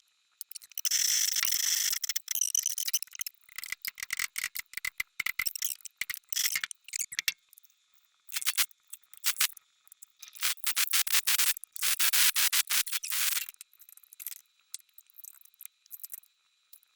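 Repeated bursts of scraping and light metallic clicking from hand work on metal parts, loudest in stretches of a second or so between about one and thirteen seconds in, then only faint scattered ticks.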